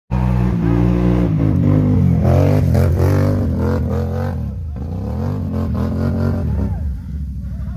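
ATV (quad bike) engine revving hard under load up a steep dirt slope, its pitch swinging up and down again and again. About seven seconds in it drops to a lower, steadier pulsing run.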